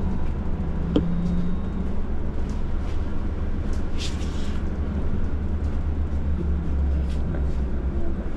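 Steady low engine rumble and road noise heard from inside a city bus cabin, with a sharp click about a second in and a short hiss about four seconds in.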